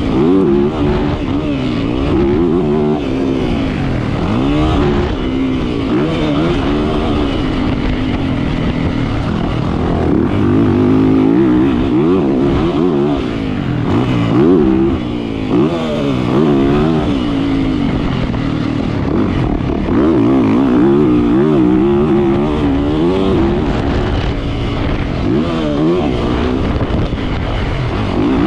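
Yamaha 450 motocross bike's four-stroke single-cylinder engine, heard from on the bike, revving up and dropping off again and again as the rider opens and closes the throttle around the track.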